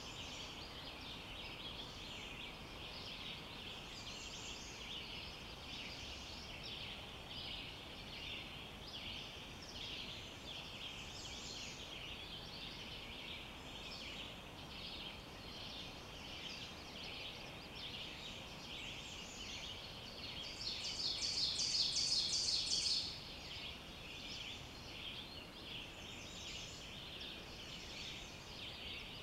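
Forest dawn chorus: many overlapping high chirps and trills sounding on and on. About two-thirds of the way through, one louder, rapid trill stands out for two to three seconds.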